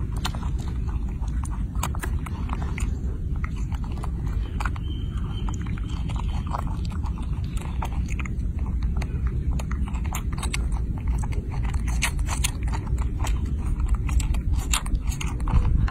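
A baby macaque chewing grapes close to the microphone: a rapid run of small wet smacks and clicks from its mouth, thicker near the end, over a steady low rumble.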